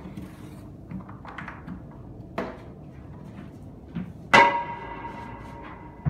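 Metal gym weights clanking: a few light knocks, a sharper clank about two and a half seconds in, then a loud metallic clang about four seconds in that rings on and fades over a second or so.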